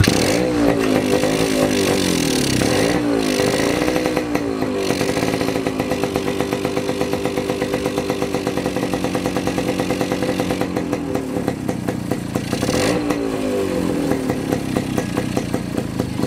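Single-cylinder two-stroke motorcycle engine of an HD3 catching just after a kick start. It is blipped up and down a few times over the first five seconds, then settles into a steady fast two-stroke idle, with one more blip about three-quarters of the way through.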